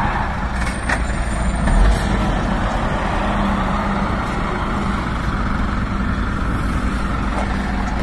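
Scania semi-truck pulling a curtainsider trailer drives slowly past, its engine running with a low steady hum under road noise.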